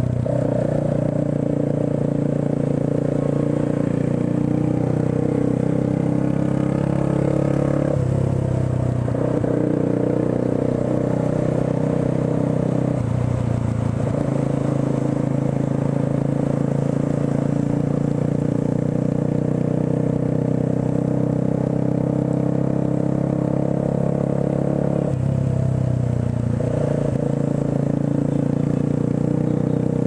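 Motorcycle engine running steadily under the rider at moderate road speed, its note shifting briefly three times, about 8, 13 and 25 seconds in, as the throttle or gear changes.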